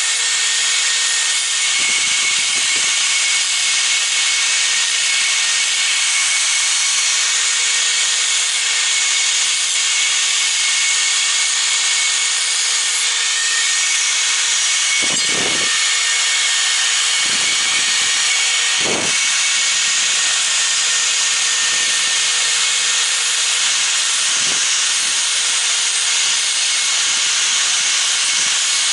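Electric angle grinder clamped in a bench vise, running steadily as a metal bracket is pressed against its disc to chamfer the edges: a continuous high grinding hiss over the motor's steady hum, with a few brief dull knocks.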